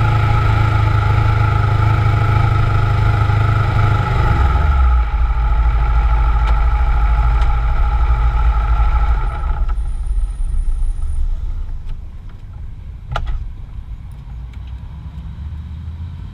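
Kawasaki Ninja 650's parallel-twin engine running steadily as the bike rolls slowly, dropping to a lower note about four seconds in as it slows toward idle. The sound grows quieter later on, with a couple of sharp clicks near the end.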